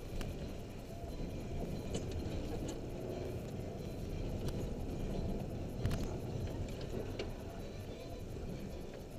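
Vehicle driving slowly over a bumpy dirt road, heard from inside the cab: a steady low rumble of engine and tyres with scattered rattles and clicks, and a louder knock about six seconds in.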